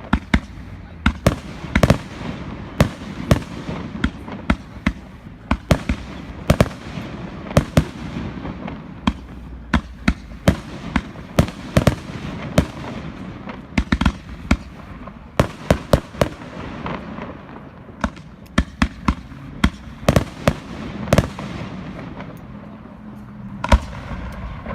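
Aerial fireworks display: a rapid, irregular series of sharp bangs from bursting shells, several a second at times, over a continuous rumble and crackle of the display. The bangs thin out in the last few seconds.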